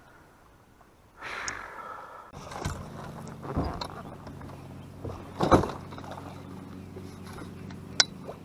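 Boat motor starting up and running steadily from about two seconds in, a low even hum, with several knocks and thumps on the boat and a sharp click near the end.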